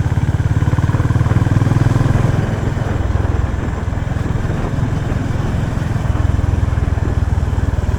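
Honda CB350RS's stock exhaust on its air-cooled single-cylinder engine, running at low speed with an even pulsing beat, a little louder for the first couple of seconds before settling.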